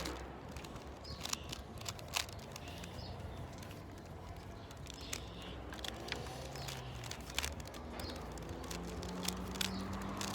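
Rubik's cube being turned fast by hand: irregular plastic clicks and snaps as its layers rotate.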